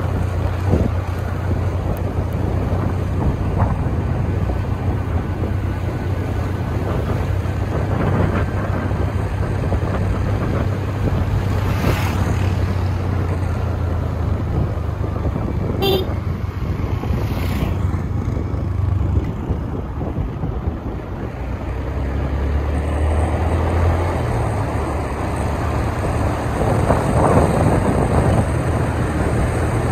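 A motor vehicle's engine running steadily under way, with wind and road noise over it; the engine note drops lower about twenty seconds in, and a few short sharp clicks come just past the middle.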